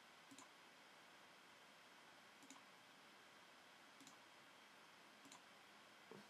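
Faint computer mouse clicks, about five spread a second or more apart, over near-silent room tone.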